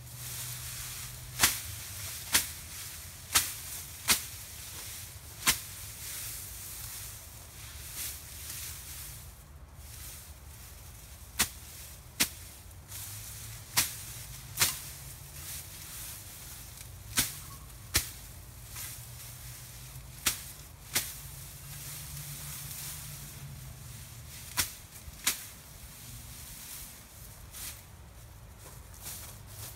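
Machete chopping through tall grass and weeds: sharp cutting strikes, often in pairs less than a second apart, with a pause of several seconds between the first and second runs.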